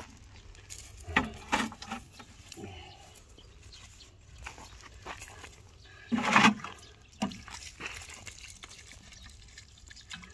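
Stony soil scraped and pushed by hand into a planting hole around a bare-root sapling: scattered scrapes and knocks of earth and small stones, with a sharper clatter about six seconds in. Near the end, water starts pouring from a plastic watering can onto the fresh soil.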